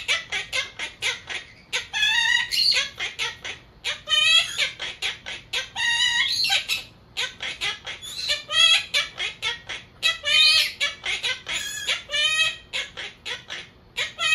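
Monk parakeet chattering: rapid strings of short harsh chirps, about four or five a second, broken by several longer warbling calls.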